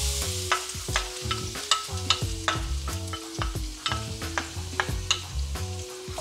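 Minced garlic sizzling in hot oil in a nonstick wok, with scattered clicks and scrapes of the bowl and a wooden spoon against the pan as it goes in and is stirred. Background music plays underneath.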